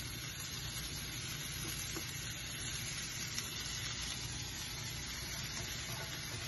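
Steady sizzling from a hot wok of stir-fried vegetables with soy sauce as cooled cooked basmati rice is tipped in from a steel plate.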